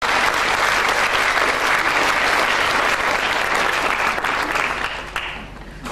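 Audience applauding, many hands clapping together; the applause dies away about five seconds in.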